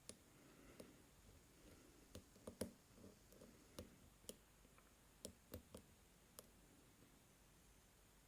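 Faint, irregular clicks of a lock pick and tension wrench working the pins inside a Draper 61mm padlock, with the core held in a false set. The clicks come in a loose cluster for the first six seconds or so, then stop.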